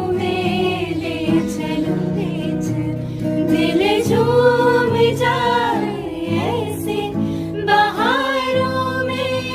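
Background music: a Hindi song with a sung vocal melody over a sustained instrumental backing.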